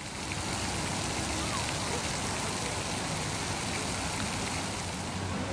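Fountain water splashing and spraying: a steady hiss of falling water.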